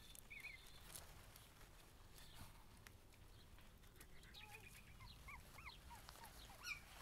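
Faint high-pitched whimpers and squeaks from Cavalier King Charles Spaniel puppies. The cries come as a cluster of short rising and falling calls in the second half, with a few light clicks.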